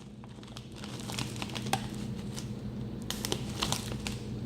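A bag of chips crinkling in irregular crackles as it is handled and turned over to look for the ingredients list.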